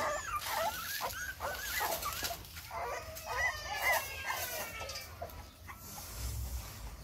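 A litter of young puppies whining and squeaking as they nurse, many short high cries overlapping one another, thinning out near the end.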